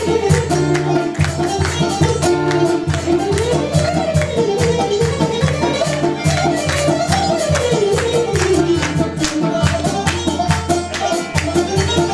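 Live traditional music from a small ensemble of qanun, violin, guitar and hand percussion, over a steady drum beat. The melody line slides up and down in long arcs.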